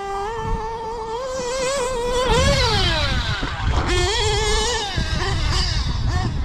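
The Novarossi .28 nitro engine of a Losi 8ight XT RC truggy running at high revs. Its pitch is held and climbs to a peak about two and a half seconds in, then drops away as the throttle comes off. A second full-throttle burst follows about a second later and also falls away.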